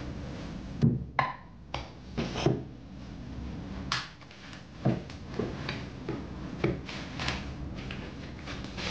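Plastic cling film being pulled off its roll and pressed over a plate of food, with crinkling and a scatter of light knocks and clinks as the plates and roll are handled on the counter, over a steady low hum.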